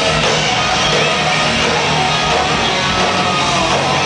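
Hard rock band playing live, heard from within the audience: distorted electric guitars over drums, loud and unbroken.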